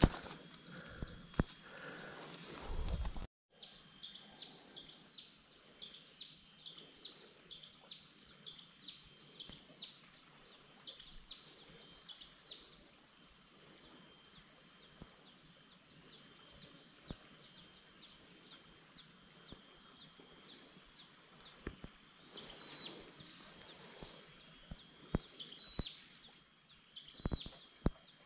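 Riverside jungle ambience: a steady high-pitched insect drone, with a bird repeating short chirps over it at about one and a half a second, in one long run and again near the end. A few sharp clicks stand out near the end.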